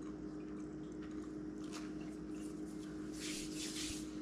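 A person quietly chewing a bite of bread spread with apple butter, with a couple of soft mouth and breath noises, over a steady low hum in the room.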